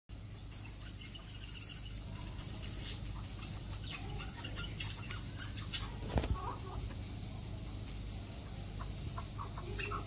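Birds calling in an aviary: scattered short chirps over a steady high hiss, with a louder, lower call about six seconds in.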